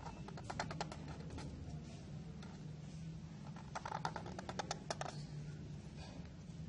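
A broad-tipped calligraphy marker scratching and tapping on paper as strokes are drawn: two short runs of quick clicks, one near the start and one about four seconds in, over a steady low hum.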